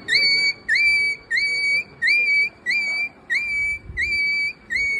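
A high whistle repeated about eight times at an even pace, each note sliding up briefly and then holding steady for about half a second. The notes are identical, like a played-back prank sound effect.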